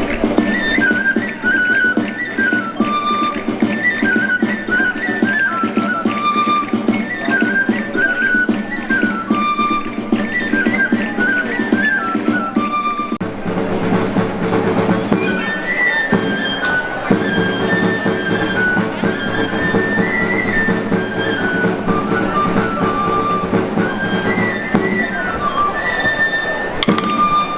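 Traditional folk music led by a high, flute-like pipe melody in short repeated phrases over steady accompaniment. About halfway through, one tune ends and another begins.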